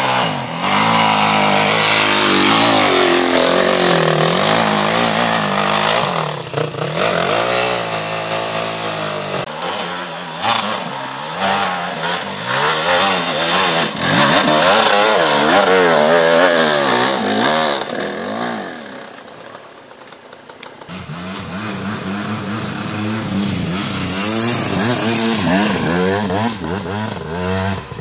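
Enduro dirt bike engines revving hard under load on a steep, loose forest climb, the pitch rising and falling with the throttle. The engine noise drops away briefly about two-thirds of the way through, then picks up again.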